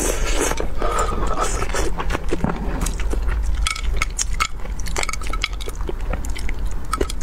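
Close-miked eating sounds of spicy braised fish: wet chewing, smacking and slurping with many small sharp clicks.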